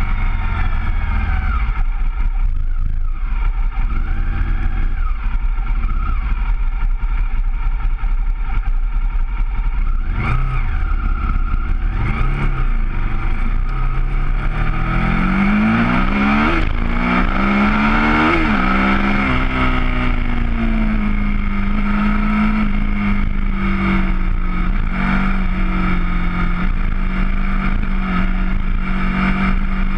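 Sport motorcycle engine running hard at speed, with heavy wind rush on the camera's microphone. The engine pitch climbs about halfway through, then holds steady.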